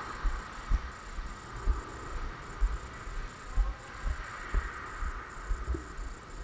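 Walking footsteps heard as low, dull thumps about once a second, with a faint steady hiss behind them.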